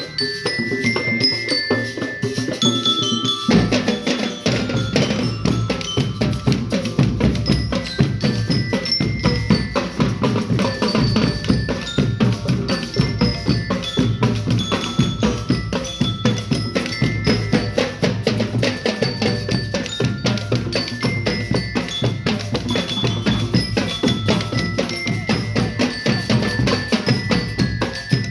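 A school marching band (banda de guerra) playing a march: drums keep up a fast, dense beat under a high chiming melody of short notes from bell lyres. The low drums come in heavily about three and a half seconds in.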